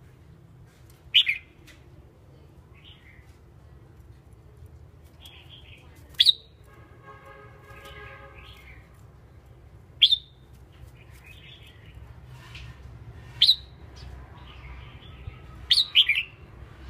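Caged red-whiskered bulbul giving short, sharp chirps a few seconds apart, five in all, the last a quick double, with fainter warbling notes in between.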